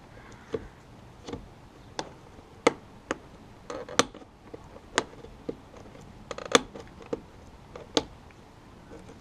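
Irregular sharp plastic clicks and taps, about a dozen, from handling and fitting a replacement heated door-mirror glass and its backing plate.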